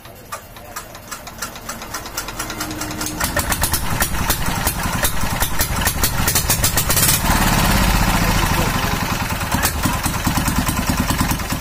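Small Chinese single-cylinder diesel engine turning over and firing, its regular beats speeding up and growing louder over the first few seconds until it runs. It runs with a knocking 'dhak dhak', which the mechanic puts down to the injector nozzle pressure being set too high.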